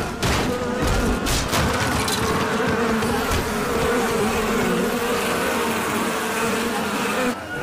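A swarm of bees buzzing in a steady, wavering drone, with a few sharp hits in the first second and a half.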